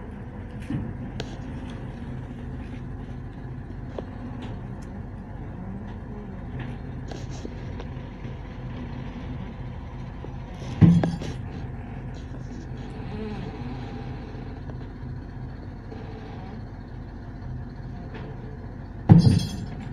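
Truck crane's diesel engine running steadily while lifting a boat in slings. Two loud sudden bangs cut across it, about eleven seconds in and again near the end.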